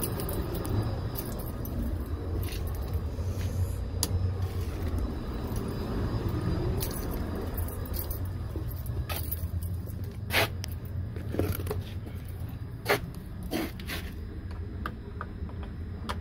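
Phone handling and walking noise over a steady low hum, then sharp metallic clicks and clanks from about ten seconds in as a sheet-metal electrical box cover is handled.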